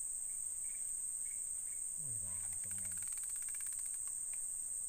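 Steady high-pitched drone of insects in the riverside vegetation, with a burst of fast, even ticking a little past halfway that lasts about a second and a half, and a brief low mumble of a man's voice.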